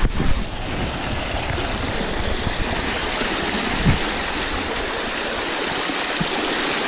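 Fast-flowing stream water rushing steadily over rocks. There are two short thumps, one at the start and one about four seconds in.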